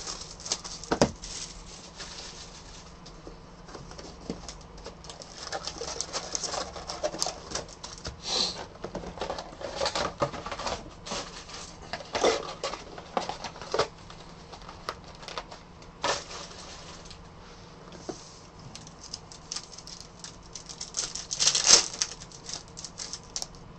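Plastic shrink-wrap and foil trading-card pack wrappers crinkling and tearing as packs are opened and cards handled, in intermittent crackles and rustles. The loudest tear comes near the end.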